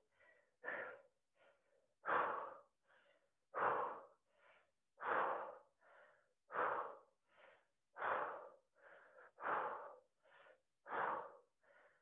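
A woman breathing hard in time with an exercise: a forceful exhale about every second and a half, with a softer breath between each.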